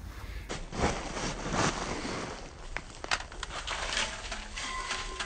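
A metal scoop shovel scraping into loose wood mulch, then mulch being flung off the shovel and sprayed into a planting bed, heard as a few rushing swishes with small clicks.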